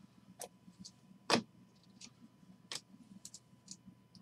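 Hockey trading cards being flipped through by hand: scattered light clicks and snaps as card edges slide off the stack, one louder click about a third of the way in.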